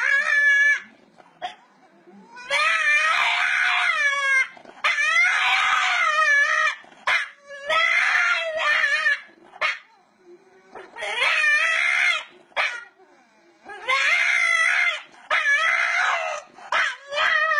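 A French bulldog howling in a series of long, wavering cries, about seven of them, each one to two seconds long with short pauses between.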